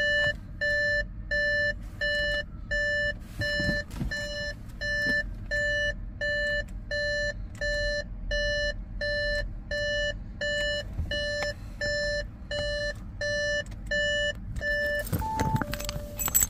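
Audi A6 instrument-cluster warning chime beeping over and over, nearly two beeps a second. It is the alert that goes with the 'Switch off ignition before leaving car' message, sounding from the freshly repowered cluster. The beeping stops about a second and a half before the end, and a single higher tone follows.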